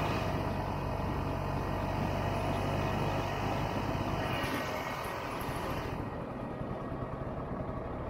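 1967 Ski-Doo Olympique 250 snowmobile's two-stroke engine running at a steady, low speed as the sled moves along; it eases off slightly about two-thirds of the way in.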